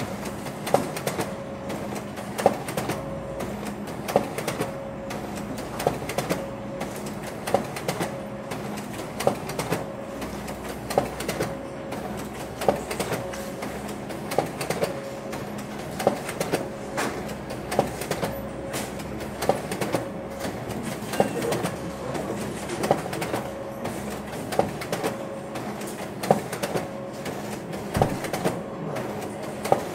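Office photocopier running: a steady machine hum with a sharp clack repeating about once every second or so, not quite evenly spaced.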